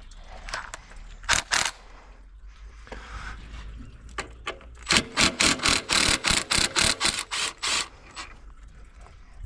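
Two sharp knocks, then a hand socket ratchet with a 12mm socket clicking through a quick run of about a dozen short strokes, roughly four a second, as a bolt is wound out.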